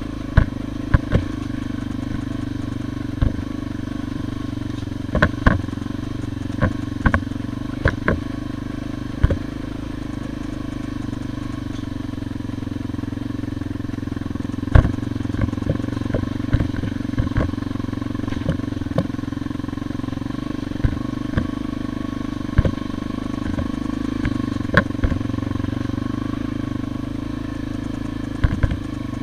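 Trail motorcycle engine running steadily at low speed over a rough dirt lane, with frequent sharp knocks and rattles as the bike jolts over ruts and stones.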